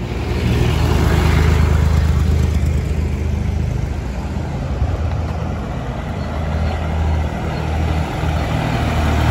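Motor vehicle engine running with road noise: a steady low drone.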